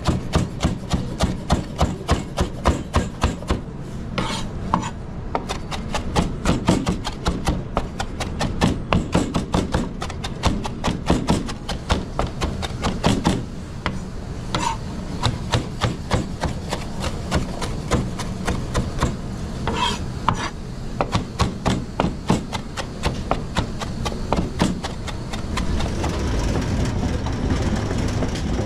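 Kitchen knife working on a chopping board: a steady run of quick strokes, about four a second, with short pauses, over a steady low hum.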